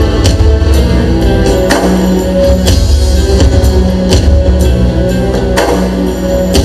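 Live rock-style band playing an instrumental passage: drum kit with regular cymbal hits about once a second over a strong bass line, with electric guitar and keyboard.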